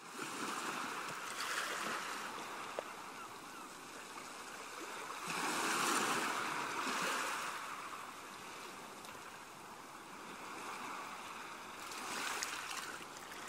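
Waves washing onto a beach and drawing back, the surf swelling and ebbing several times.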